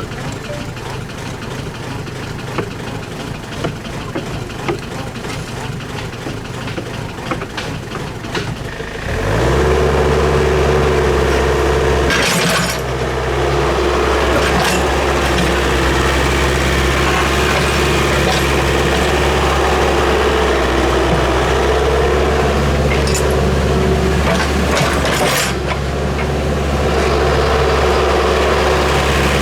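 Excavator diesel engine running, stepping up suddenly to a louder, higher steady drone about nine seconds in. Two sharp knocks sound later, one a few seconds after the step and one near the end.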